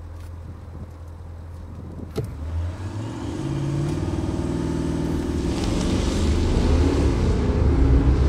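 Audi SQ8 TDI's 4.0-litre twin-turbo V8 diesel idling, then, after a click about two seconds in, revving up and accelerating hard from a standstill, the engine getting steadily louder.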